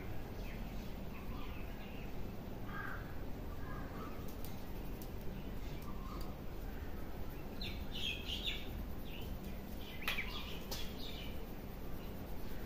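Birds calling and chirping in short scattered calls, busiest in the second half, over a steady low background rumble. A few sharp clicks or taps, the loudest about ten seconds in.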